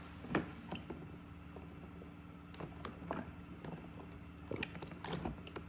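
A toy seal being played with in water: scattered small knocks and splashes, several of them in quick succession near the end.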